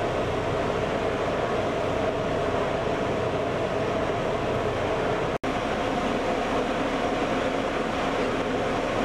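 Steady mechanical drone with a rushing hiss, like a motor vessel's engine, broken by a split-second dropout about five seconds in.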